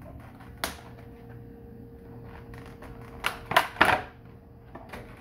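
Cardboard card box and its contents being handled and unpacked: a sharp click about half a second in, then a quick run of loud crackling rustles around three and a half seconds in, with a few light clicks near the end.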